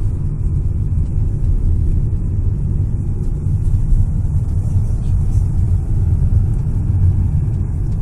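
Car driving along, a steady low rumble of road and engine noise heard from inside the cabin.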